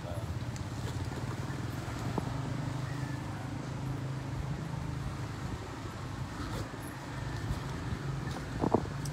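A steady low motor hum, like an engine running nearby, with one short knock near the end.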